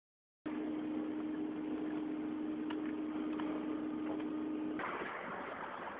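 A steady mechanical hum over background noise, cutting in abruptly about half a second in after a moment of silence, with a few faint clicks. About five seconds in it gives way to a different, hissier background noise.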